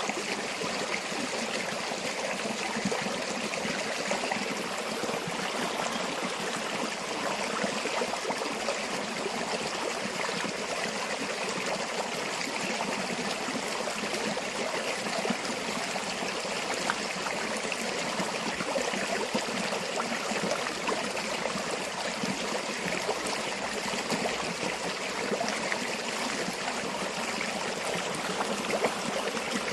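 A river or stream flowing steadily over rocks, with a continuous rushing and trickling of water.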